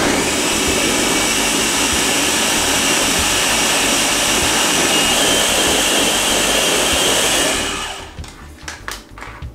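Countertop blender with its motor head on top of the jar, running steadily for about eight seconds as it blends frozen pineapple chunks and pineapple-juice ice cubes into a piña colada base, then stopping. A few light clicks and knocks follow as the motor head is handled.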